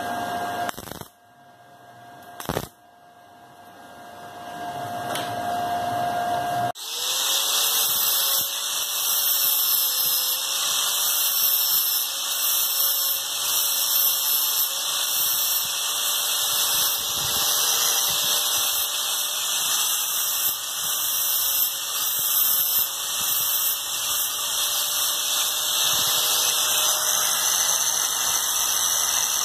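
Angle grinder with an abrasive disc grinding a small steel piece, starting suddenly about a quarter of the way in and running steadily after that. Its motor pitch wavers up and down as the disc bites into the metal. Before the grinder starts there is a quieter stretch with one sharp click.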